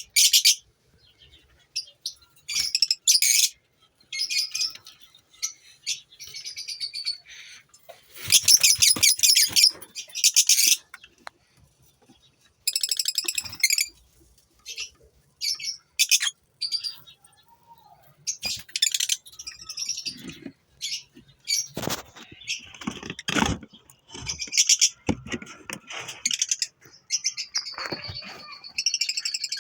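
Lovebirds in a breeding colony chattering: repeated bursts of shrill, high chirping calls separated by short pauses.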